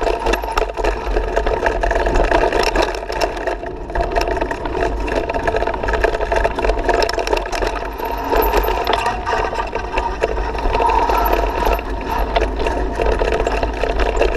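Mountain bike riding fast down a rough dirt trail: a steady clattering rattle of the bike and its mounted camera over the bumps, with tyres on dirt and a low wind rumble on the microphone.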